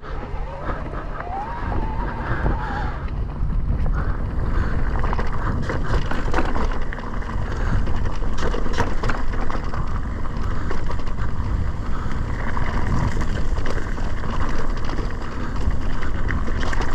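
Mountain bike ridden along a dirt trail: wind buffets the microphone over the rattle and crunch of the tyres and frame, with scattered clicks throughout.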